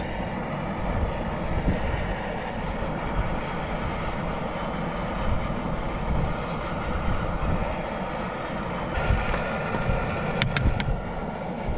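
Steady rushing wind on the microphone. About nine seconds in, a brighter sizzle starts as battered yabby tails go into hot oil in a small pot on a gas camp stove, with a few light clinks of a spoon on the pot.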